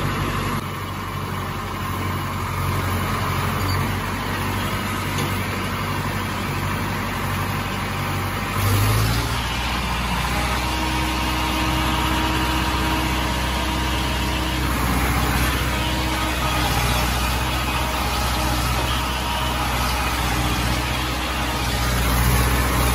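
Tractor diesel engine running steadily under the seat, its low drone growing louder about nine seconds in as it takes more throttle.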